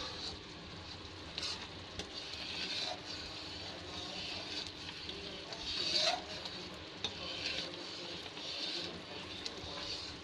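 A metal spoon stirring and scraping a thick, bubbling mixture of mawa and sugar syrup in a kadhai, with a steady sizzle and short clicks of the spoon against the pan, a louder scrape about six seconds in. The mixture is being cooked down and thickened until it will set as barfi.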